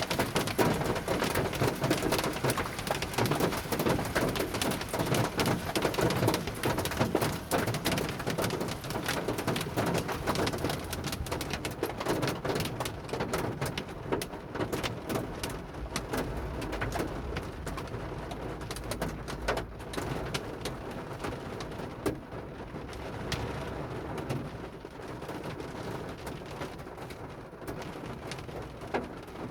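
Hail pelting down as a dense, steady patter of sharp little clicks, easing and thinning out about halfway through.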